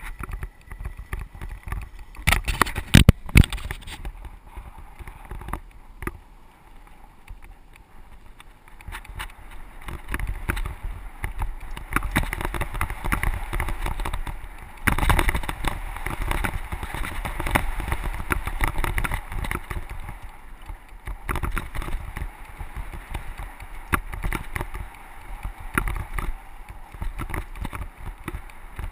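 A mountain bike riding over a rough dirt trail, picked up by a camera mounted on the handlebar: tyres crunching over dirt and rapid rattling and knocking of the bike over bumps. A cluster of sharp knocks comes about three seconds in, and the rattling gets rougher and louder from about ten seconds on.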